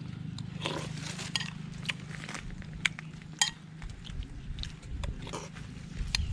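Metal spoon clinking against a ceramic bowl a few times, with the chewing and mouth sounds of someone eating.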